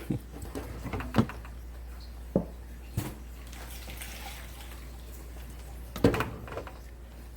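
Tools and metal fittings on a water heater knocking and clinking a few times as a part is handled and refitted, over a steady low hum.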